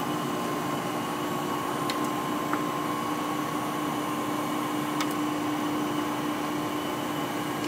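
Hydraulic system of a CCI Citron surface grinder running steadily after being switched on: an even hum with a steady whine, and a few faint clicks.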